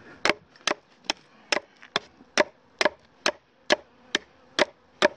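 Schrade knife blade chopping at the end of an oak stake held on a stump: about a dozen sharp wooden chops at an even pace of a little over two a second.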